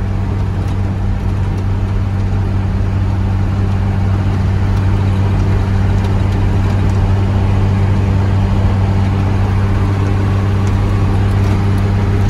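Mercedes-Benz 1113 truck's turbocharged six-cylinder diesel engine running steadily under way, heard from inside the cab as a loud, even low drone. The turbo has a comb (pente) fitted in its intake.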